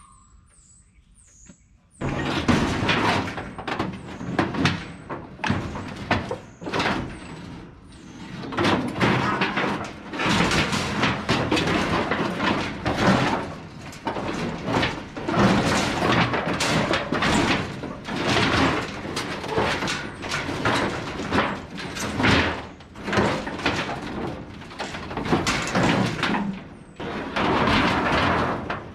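Steel roofing sheets being dragged and stacked: sheet metal scraping and sliding over sheet metal with repeated clattering bangs. It starts suddenly about two seconds in and goes on without a break.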